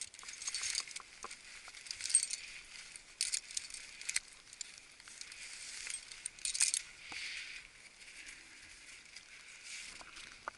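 Spindrift snow shower pouring down from above: a hiss of falling snow with many small ticks of ice grains pattering, surging louder several times.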